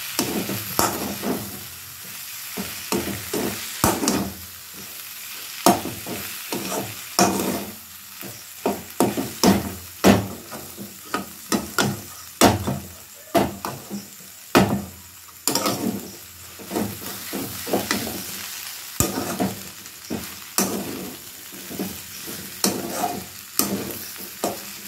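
Metal spatula scraping and clacking irregularly against a steel kadai as penne pasta is stirred into a masala mixture, over a steady sizzle of frying.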